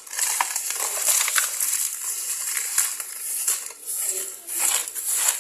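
Digging and scraping through sand, a continuous gritty crunching and crackling.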